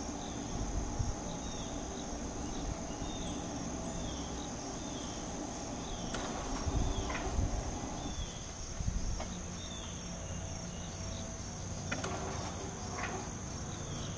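Insects droning steadily at a high pitch, with a short falling chirp repeating every second or so.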